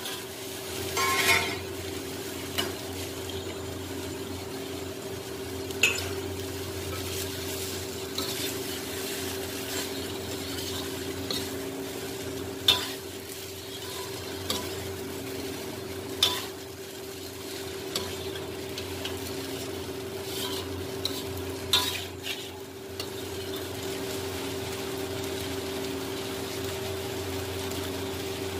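A slotted metal spoon stirring and scraping cauliflower, potato and onion frying in a metal kadhai, with a handful of sharp clinks of the spoon against the pan over a steady frying sizzle. A steady low hum runs underneath.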